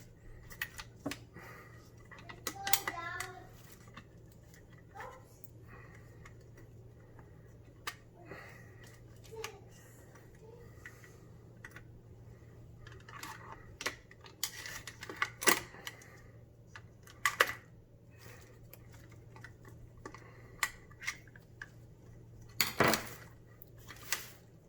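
Irregular small clicks and taps of hands working on the garbage disposal's electrical connection, pulling the cover and wires apart, with a few sharper knocks in the second half.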